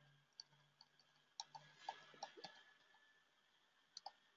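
Near silence broken by about eight faint, irregular clicks from someone working at a computer, with a faint steady hum underneath.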